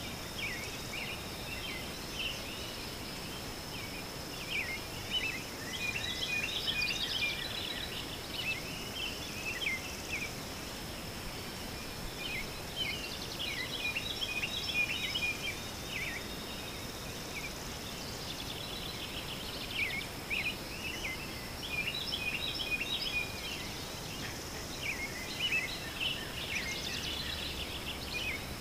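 Small birds chirping and twittering in a busy outdoor chorus of short, quick calls that come in clusters every few seconds, over a thin steady high-pitched tone.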